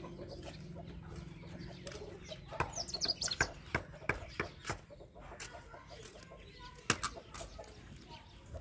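Irregular sharp knocks and taps, loudest about seven seconds in, with birds calling.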